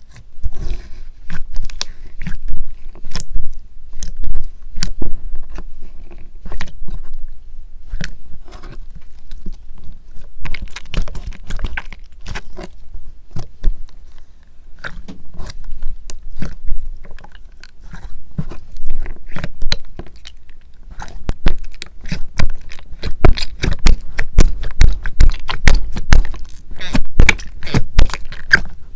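Clear, glossy slime studded with small beads being squeezed and pressed by hand in its tub, making sticky clicks and crackling pops. They come in clusters and grow thick and rapid in the last several seconds.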